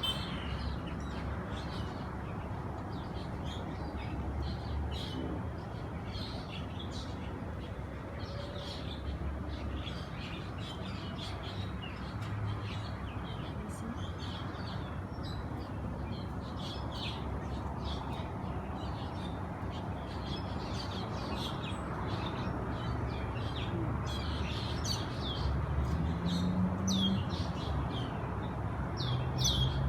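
Birds chirping: many short, high chirps scattered throughout, over a steady low rumble.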